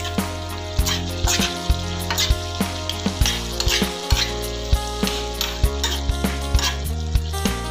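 A metal spoon stirring beef and broccoli in a sizzling sauce in a stainless steel frying pan, scraping and clicking against the pan in repeated strokes, over background music.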